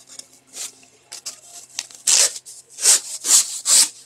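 Rustling and crinkling as a rolled diamond painting canvas is pushed and handled, in about five short, loud rustles, most of them in the last two seconds.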